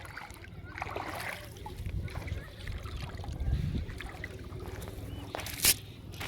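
Water sloshing and trickling with small irregular knocks, as from fishing with a net in water. A single sharp, loud smack comes near the end.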